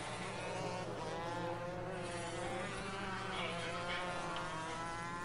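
Several racing karts' two-stroke engines heard from a distance, a high buzzing whine whose pitches rise and fall and overlap as the karts accelerate and lift through the corners.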